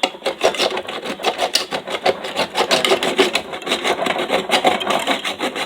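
Knife blade sawing back and forth through the lid of a tin can: a continuous metallic rasping, several quick strokes a second.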